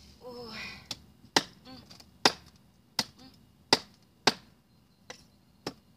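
A cleaver chopping through salmon pieces on a wooden chopping board: about eight sharp chops at an uneven pace, roughly one every two-thirds of a second. A brief voice sound comes near the start.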